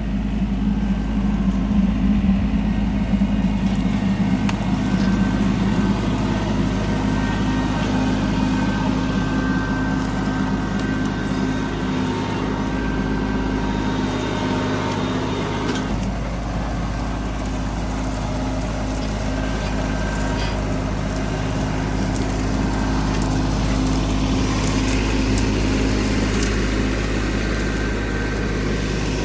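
Compact tractor engine running steadily while the front-loader grapple scoops up piled debris.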